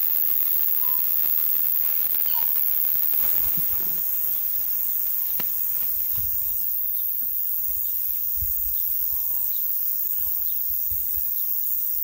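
A steady high hiss with a few faint, short bird calls. Low bumps come as the camera is set down, about six seconds in.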